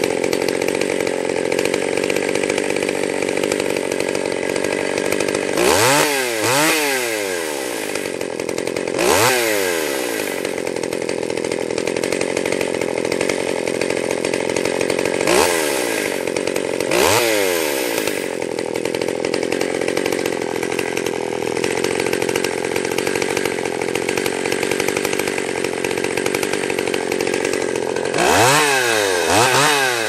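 Stihl 031 two-stroke chainsaw cutting into a sweet gum tree, running steadily at one pitch, with its revs briefly rising and falling several times.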